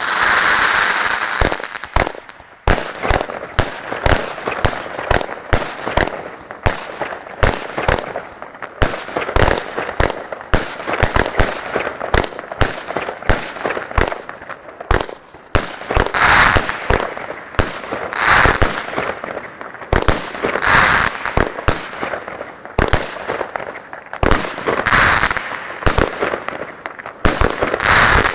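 Fireworks going off in a continuous barrage: rapid sharp bangs and crackling, with a louder hissing rush every few seconds.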